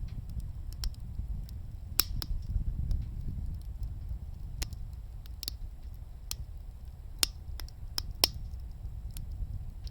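Wood burning in a wood gas stove, crackling with sharp, irregular pops over a steady low rumble.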